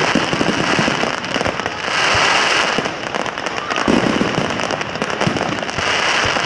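Fireworks going off: a dense crackling and popping that swells and fades, with a low boom about four seconds in.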